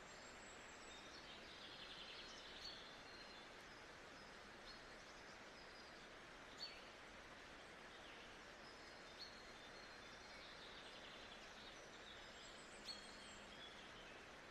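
Faint nature-sounds ambience: a steady soft hiss with short bird chirps every few seconds, clearest around three, seven, nine and thirteen seconds in.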